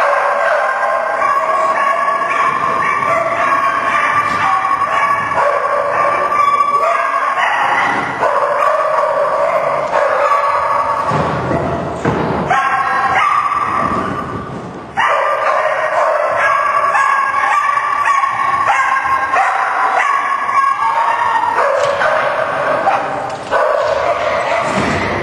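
A dog barking over and over as it runs an agility course.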